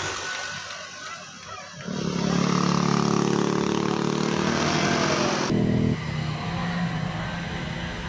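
Motor scooter engine running loud and steady as it comes round the bend and passes close by. About five and a half seconds in it breaks off abruptly into a quieter scooter engine humming along.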